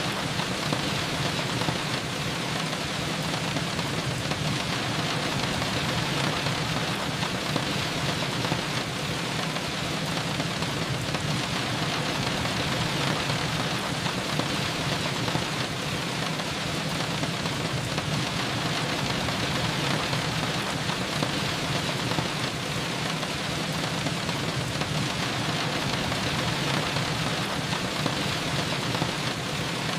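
Steady rain falling, an even, unbroken hiss that does not let up.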